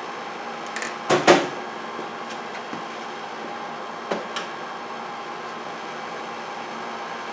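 A sharp clunk about a second in, then a few lighter clicks and knocks, from tools and hardware being handled at a wall-mounted breaker panel. A steady low hum runs underneath.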